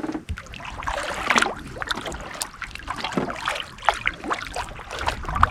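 Water splashing and trickling around a canoe in irregular small strokes, as a paddle dips and drips.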